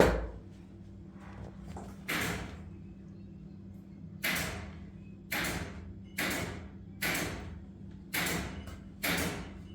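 Repeated sharp knocks or thuds, each fading briefly: a loud one at the start, another about two seconds in, then roughly one a second, over a faint steady hum.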